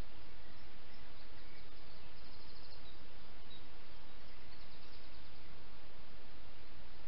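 Steady hiss from a trail camera's built-in microphone in woodland, with faint, brief high trills twice, about two seconds and about five seconds in. The fox cub makes no sound that stands out.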